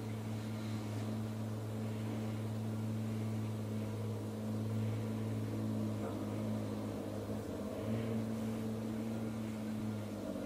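Steady low mechanical hum with a deep, even droning tone that holds without change.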